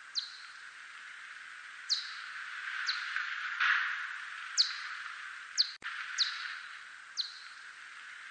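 Steppe whiskered bat echolocation calls, brought down into hearing range: short, steep downward chirps at an irregular rate of about one a second, over a steady hiss. The hiss swells briefly about halfway through.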